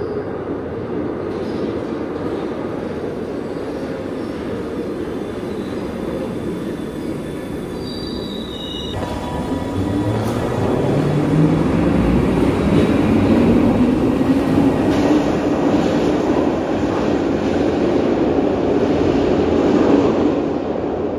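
Classic Glasgow Subway train running through the tunnel into the station and then pulling out, with steady rail noise and wheel squeal. About halfway through, its motors whine and rise in pitch as it speeds up, and this is the loudest part.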